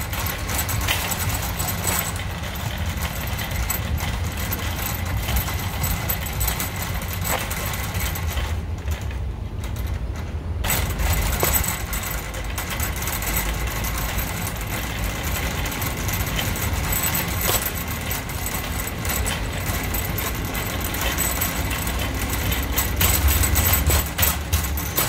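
Empty wire shopping cart being pushed across an asphalt parking lot: a steady low rumble from the wheels rolling, with light metallic rattles and clicks from the basket.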